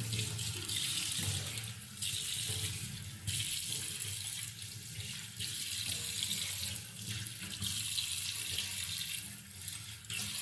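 Water from a tap running and splashing in a sink as someone washes at it. It comes in spells of a second or two with short breaks between them.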